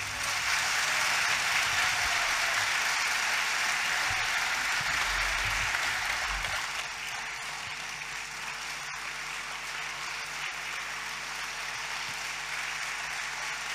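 Audience applauding, loudest over the first several seconds and easing a little about halfway through.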